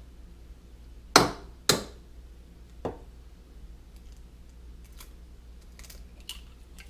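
Egg being knocked against the rim of a bowl to crack it for batter: two sharp knocks about half a second apart, a softer knock about a second later, then a few light clicks.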